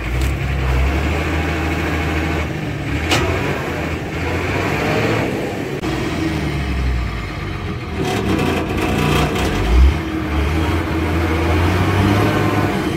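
2003 Ashok Leyland bus's diesel engine running after a cold start from about ten years parked, its speed rising and falling several times. A sharp click about three seconds in.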